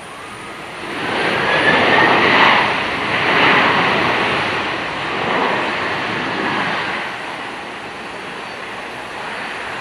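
Boeing 767-300ER airliner's twin jet engines going into reverse thrust just after touchdown: a rushing roar with a faint rising whine that swells about a second in, then dies away over several seconds as the plane slows on the runway.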